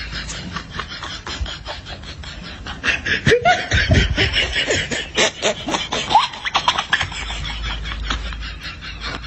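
The "Chinese laugh" meme sound effect: quick, pulsing laughter that grows louder, with swooping pitch, from about three to seven seconds in, then drops back.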